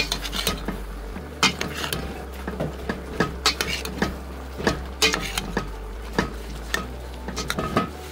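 Metal spoon stirring chopped cabbage in a stainless steel pot, with irregular clinks and scrapes of metal on metal.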